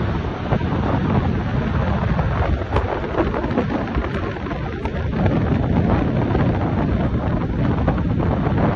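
Wind buffeting the microphone: a loud, steady rush of deep noise with no clear beat of helicopter rotor blades.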